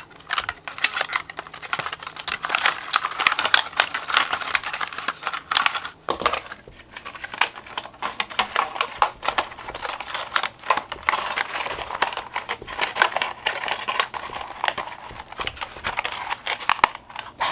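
Packaging crinkling and rustling as it is handled and unwrapped, a dense run of irregular crackles with a brief lull about six seconds in.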